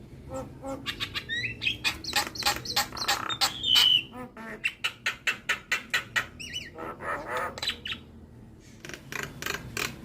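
Javan myna singing a fast, varied song of rapid clicks, harsh chatter and whistled notes. The loudest is a whistled note about four seconds in, and there is a short pause near the end.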